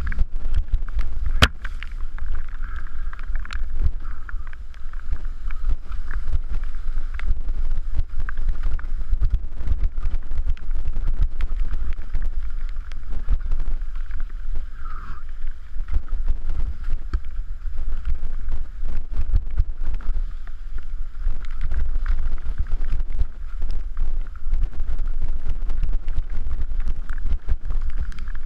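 Wind rumbling over an action camera's microphone as a mountain bike rides down a rocky dirt trail. Frequent clicks and knocks come from the bike rattling over rocks and ruts, with a sharp knock about a second and a half in.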